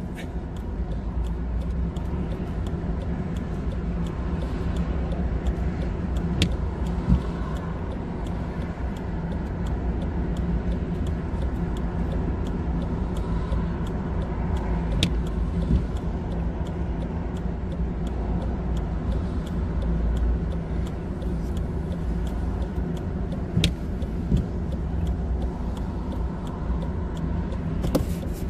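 Steady low rumble inside a broken-down car as it is pushed slowly along the road, its tyres rolling on the tarmac. A few sharp clicks or creaks come through now and then.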